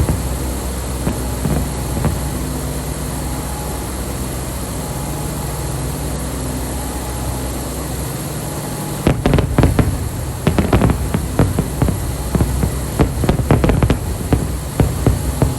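Fireworks exploding: after a steady low rumble, an irregular run of sharp bangs and cracks begins about nine seconds in and keeps going to the end.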